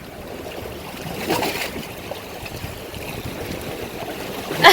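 Sea waves washing and splashing against large shoreline rocks, with a swell of water noise about a second in.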